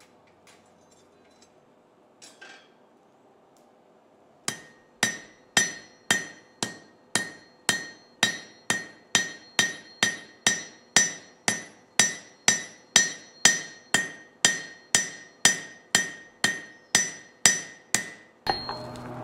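Blacksmith's hammer striking red-hot half-inch steel stock on an anvil, flattening the end into a leaf: an even run of about two ringing blows a second that starts about four seconds in. Near the end the blows stop and a steady noise takes over.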